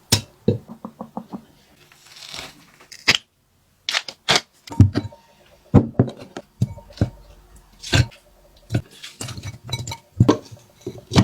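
A series of separate knocks and clatters of dishes and containers being handled and set down while food is prepared, with a few scraping sounds in between.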